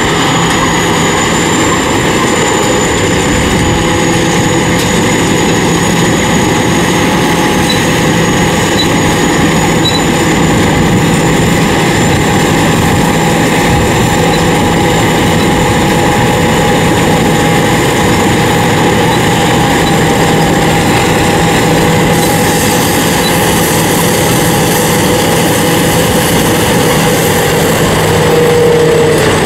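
Sit Charoen Kan Chang tracked rice combine harvester running steadily while cutting and threshing rice. Its engine and threshing machinery make a continuous loud hum with a thin, steady high whine above it.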